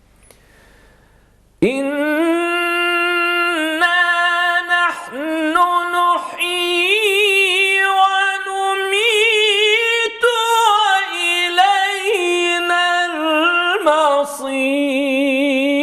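Solo voice chanting Qur'an recitation in the jawab, the upper register, of maqam Rast. It holds long melismatic notes with quick trilling ornaments, beginning about a second and a half in.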